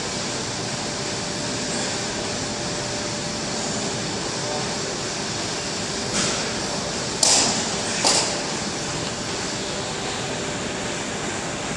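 Steady hiss of room noise, like air conditioning, with three sharp knocks or bangs about six, seven and eight seconds in, the second the loudest.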